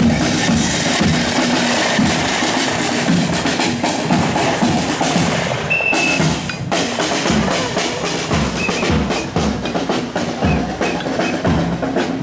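Hand-carried marching drums beaten by passing parade drummers, a busy run of strikes with street noise behind.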